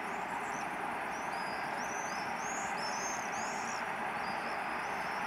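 Small birds chirping in quick, repeated rising-and-falling calls over a steady background hiss.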